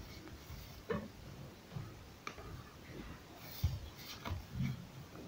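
Pencil drawing short straight lines along a plastic ruler on paper: faint scratching with light, irregular ticks as the ruler is shifted and the pencil tip sets down.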